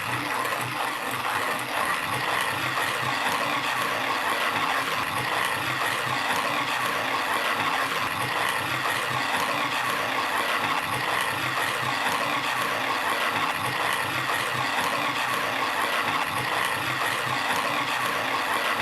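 Pietro manual flat-burr coffee grinder grinding whole beans, steady as the handle is turned.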